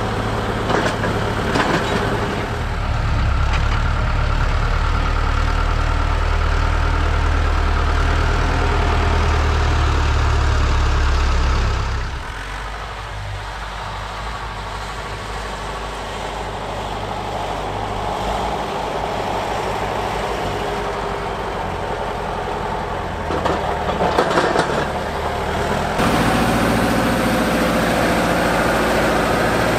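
Fortschritt ZT tractor diesel engines running steadily under the load of a snow plough blade, in three takes. For the first dozen seconds the ZT 300's engine hums loud and low. It is then heard more faintly, with some clatter shortly before the end. In the last few seconds the ZT 323's engine runs loud again as it shoves a pile of snow.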